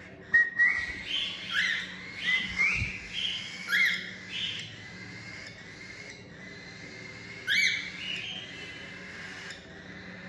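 Cockatiels chirping: a quick run of short, rising calls, then one more after a pause of a few seconds.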